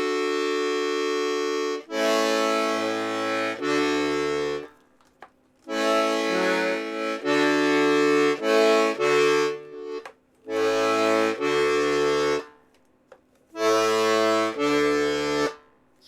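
Serenellini C#/D button accordion played on its bass side: bass notes alternating with chords in several short phrases with brief pauses between them, a nice big whack off it.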